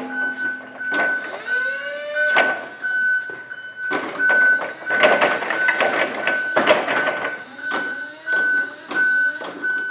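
Forklift's warning beeper sounding a rapid, even series of high beeps, over a rising and falling electric whine and bursts of mechanical clatter as the truck is run on its repaired Doosan controller.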